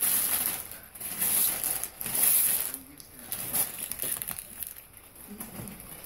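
Gift wrapping paper being torn and crumpled by hand, in several loud rustling spells over the first three seconds, then quieter handling of the paper.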